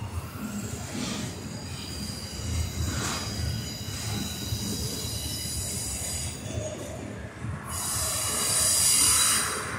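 Double-stack intermodal freight train rolling past: a steady low rumble of the cars with high-pitched wheel squeal, which swells loudest about eight seconds in.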